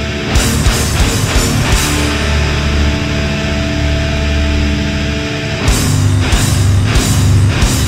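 Black metal music: distorted guitars over steady held low notes, with clusters of sharp crashing hits about half a second in and again after about six seconds.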